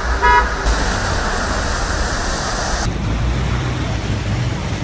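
Heavy rain pouring down steadily. About three seconds in it gives way to cars driving through deep floodwater, with engine rumble and water splashing.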